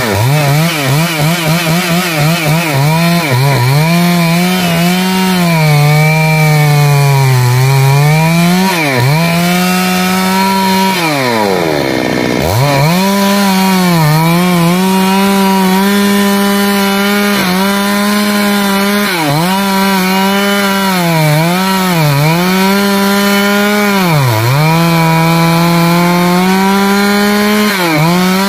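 Stihl MS 382 two-stroke chainsaw cutting into a large rain tree trunk. The engine runs near full throttle and its pitch sags again and again as the chain loads up in the wood, wavering quickly for the first few seconds. About eleven seconds in, the revs drop almost to idle and then climb back up.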